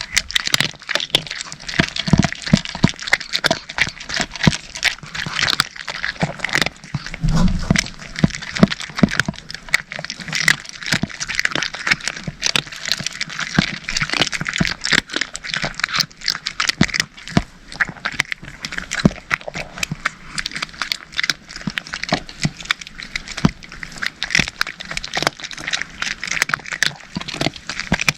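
Cats crunching dry kibble: a dense, unbroken run of quick, overlapping crunches.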